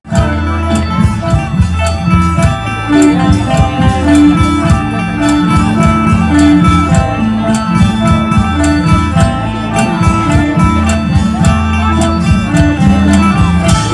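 Live traditional Thai folk-ensemble music played loud over a stage sound system: a plucked-string melody over busy drumming.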